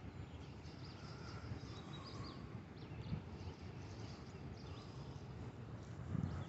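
Birds chirping and singing in short rising and falling calls over a low, steady rumble, with a few handling knocks near the end.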